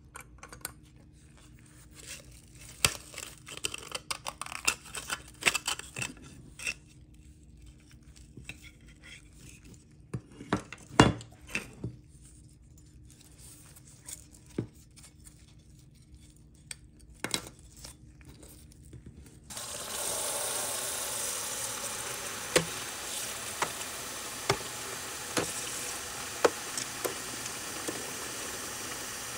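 Rusty die-cast metal model truck parts handled in gloved hands: scattered small clicks, scrapes and knocks, one louder knock about 11 seconds in. About two-thirds of the way through, tap water suddenly starts running steadily into a plastic tub holding the parts, with occasional clicks over it.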